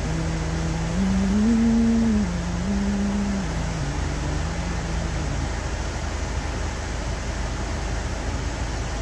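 A man humming a short tune with closed lips, a few held notes stepping up and down and stopping about five seconds in, over the steady low rumble of a car's interior.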